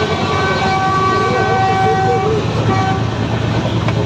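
Train horn sounding a long steady blast of about two and a half seconds, then a short second blast, over the constant low rumble of a moving train.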